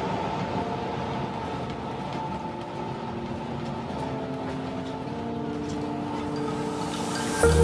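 Soft background music with sustained chords that change every second or so, over the steady low rumble of a city bus interior while riding. A louder beat with deep bass comes in near the end.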